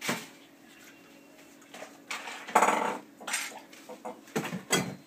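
Hard objects clattering as they are handled: a handful of separate clinks and knocks, the strongest about halfway through.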